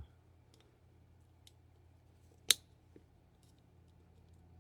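Small clicks and taps from handling an opened plastic Roku casing and its circuit board, with one sharp click about two and a half seconds in, over a faint steady low hum.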